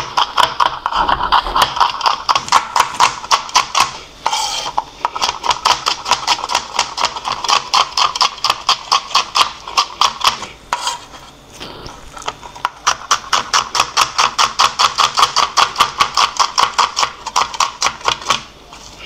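Chef's knife chopping onion on a plastic cutting board: quick, even knocks of the blade on the board, about five a second, with two short breaks around 4 and 11 seconds in.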